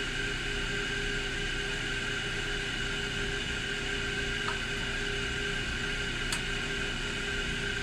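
Machine tool running steadily, its motor giving an even hum and whine that holds one pitch, with two faint light ticks in the second half.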